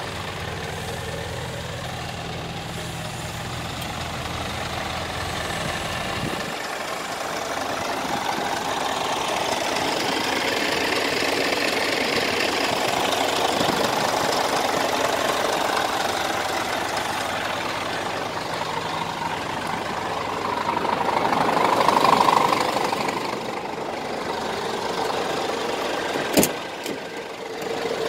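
Scania R410 tractor unit's 13-litre inline-six diesel engine idling, with a single sharp click near the end.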